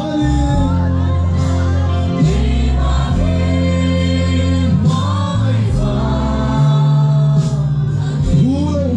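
Live gospel worship music: a band with guitar and keyboard plays steadily while many voices sing together.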